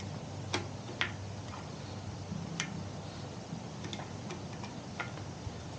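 A few light, irregular clicks of a multi-size spoke wrench being fitted onto a bicycle spoke nipple while hunting for the slot that fits.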